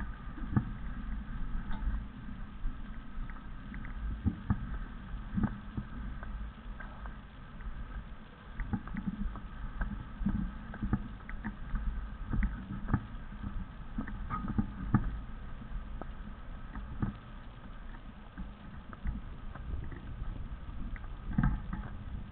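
Wind rumbling on the microphone, with irregular knocks and thumps from the camera being moved over the sand.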